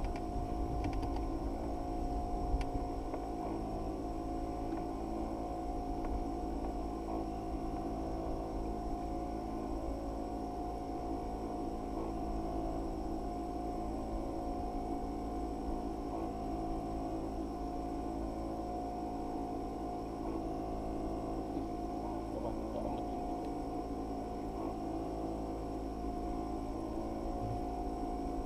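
Steady machine hum made of several constant tones, with one faint knock about two and a half seconds in.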